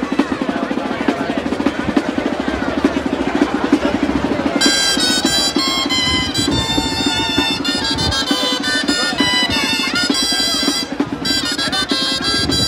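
Crowd hubbub with drumming, then about four and a half seconds in Navarrese gaitas (double-reed shawms) come in playing a waltz tune over the drum, the music that accompanies the dancing giants.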